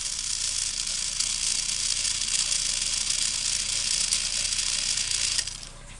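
Battery-powered TrackMaster toy train running, its small electric motor and gears giving a steady high whirring rattle that cuts off suddenly about five and a half seconds in.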